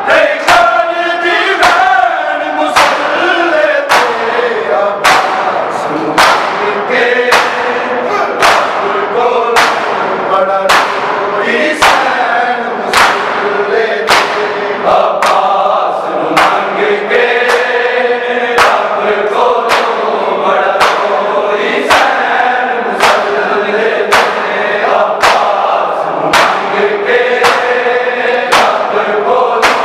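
A Punjabi noha sung by a group of male reciters, with a crowd of mourners beating their chests in unison to keep time: a sharp slap about once a second under the singing.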